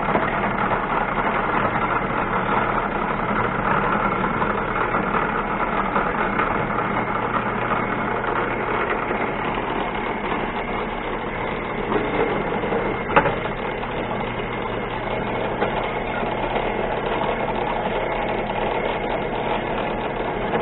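Small machine tool's motor running steadily while countersinking steel, with a single sharp click about 13 seconds in.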